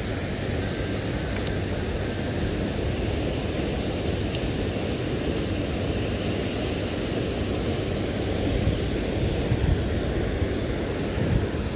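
Steady rushing of water pouring from the outlets of a hydroelectric dam into the river below, with a few low bumps near the end.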